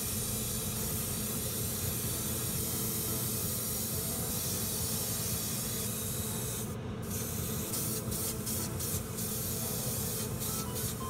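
Matt clear coat spraying onto small model parts: a steady hiss of spray that stops briefly about seven seconds in, then comes back in short rapid bursts, about three a second, over a steady low hum.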